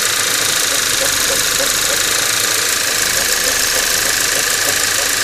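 Skoda Octavia 1.8 TSI petrol engine running steadily, with a rhythmic shuffling noise repeating about three times a second. This is the extraneous noise the owner hears on a cold engine a few minutes after start-up.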